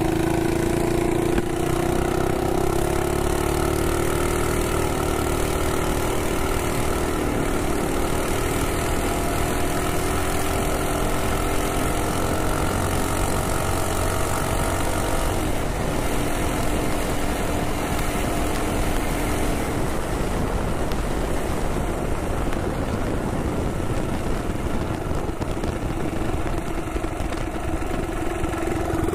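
Minibike's Predator Ghost 212 single-cylinder engine pulling hard under load, its pitch climbing steadily for about fifteen seconds as the bike speeds up, then dropping away as the throttle eases and the bike slows, settling to a lower steady note near the end. Wind rushes over the microphone at speed.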